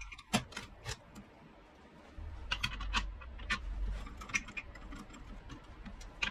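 Small steel parts clicking and tapping against the jaws of a steel drill-press vise as a pin is set in place: a string of light metallic clicks, over a low hum that comes in about two seconds in.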